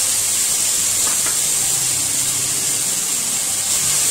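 Finely chopped onions sizzling in hot oil in a steel karahi: a loud, steady, even hiss.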